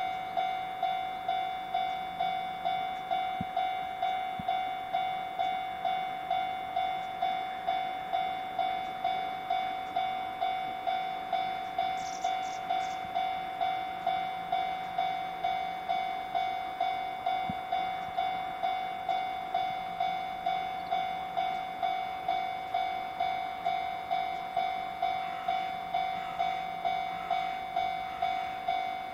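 Japanese level-crossing warning bell ringing with its steady electronic clang, about two strikes a second, signalling that a train is approaching.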